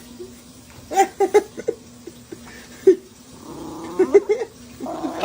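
An animal's short pitched calls, several in a row, each rising and falling in pitch, over a low steady hum.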